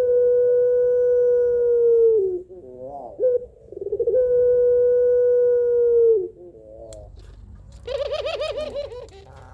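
Barbary dove of the long-voiced 'pelung' strain cooing: two long drawn-out coos, each held at one steady pitch for about two seconds and dipping at the end, each set off by short wavering notes. Near the end comes a quick rattling, laughing run of notes. The title calls it a female calling for a male.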